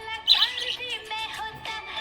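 Budgie chirping in a quick run of short, bending notes, loudest about a third of a second in, over background music with held tones.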